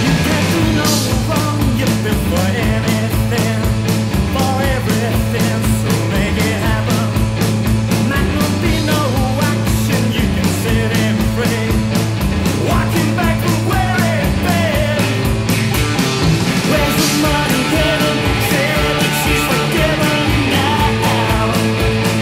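Psychedelic garage rock recording: a full band playing, with a steady driving drum beat under held bass notes and busy, distorted-sounding upper parts.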